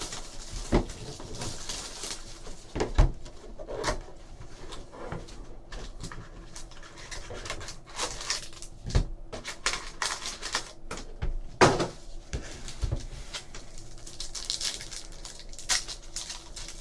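Trading card packs and cards being handled on a table: irregular clicks, taps and rustles, with a few sharper knocks.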